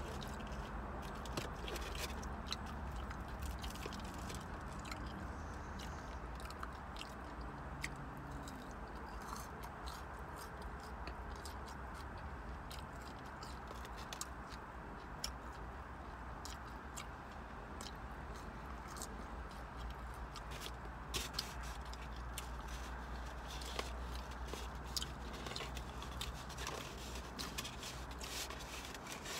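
Close-up chewing and biting of fried fish and french fries, with many small scattered mouth clicks and crunches, over a steady low hum.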